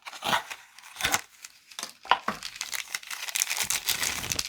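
Knife packaging being unwrapped by hand: separate crinkles and crackles at first, turning into a denser, continuous crinkling about halfway through.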